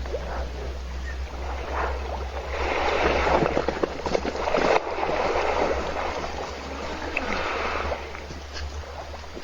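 Water gurgling and sloshing in a waterhole, swelling for a couple of seconds in the middle, over a steady low hum.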